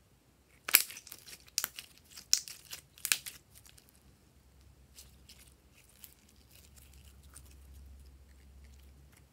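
Clear purple glitter slime being stretched and pulled apart by hand, giving sticky crackling, tearing pops: four loud bursts less than a second apart, then fainter clicks as it is folded.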